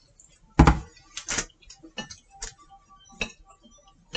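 Chopsticks clicking and tapping against a plate and a plastic yogurt pot, about seven sharp, irregular taps, the loudest about half a second in.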